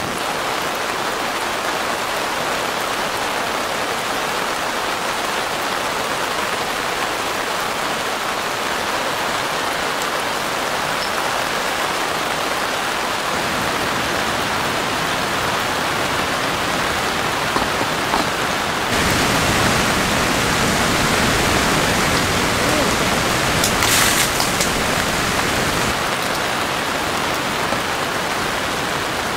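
Steady heavy rain falling, an even hiss that suddenly becomes fuller and louder about two-thirds through, with a short sharp crackle near the end.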